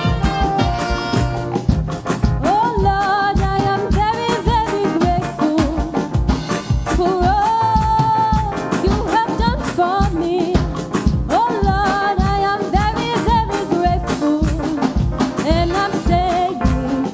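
Gospel praise music: a voice singing a melody with vibrato, coming in about two seconds in, over a band with a steady driving beat.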